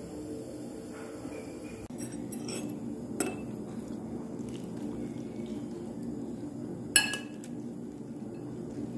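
Metal chopsticks clinking against a ceramic dish while picking at salad, with a few light taps and two sharper clinks, the loudest about seven seconds in. A steady low hum lies underneath.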